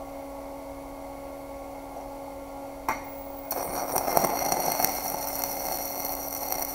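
Stick-welding arc from a 7018 electrode at about 135 amps laying a tack weld on 1/4-inch mild steel: a sharp click as the rod strikes about three seconds in, then the arc crackles steadily for about three seconds and cuts off suddenly at the end. A steady hum sits under it.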